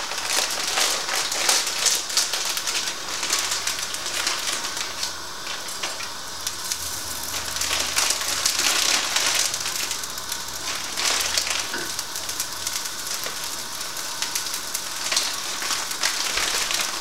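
Hot oil sizzling and crackling steadily in a frying pan as dry rice vermicelli noodles go in.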